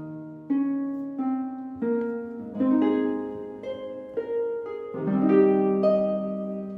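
Instrumental background music: a gentle melody of single notes that each start sharply and fade away, over a few sustained lower notes.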